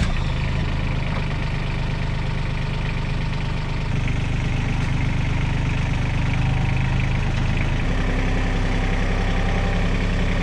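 Vehicle engine just started and idling steadily, its speed changing in one step about eight seconds in.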